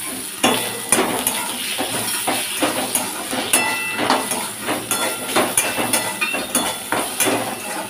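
Metal spatula scraping and knocking against an aluminium kadai as potato slices are stirred through with spices, clacking about twice a second.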